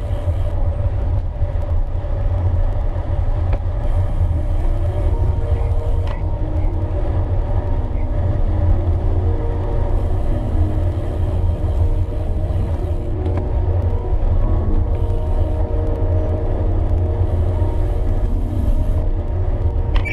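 Steady low wind rumble buffeting the microphone of a camera on a moving gravel bike, with faint higher hums over it.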